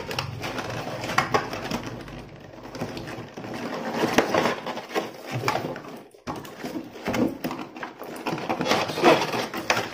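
A cardboard box being opened by hand: packing tape peeled from the box end and the cardboard flap pulled open, with cardboard scraping and plastic wrap rustling in irregular crackles.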